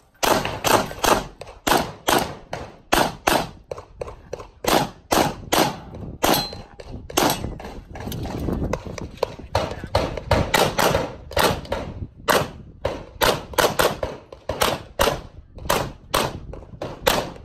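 Walther Q5 Steel Frame pistol fired in rapid strings, mostly quick pairs of shots.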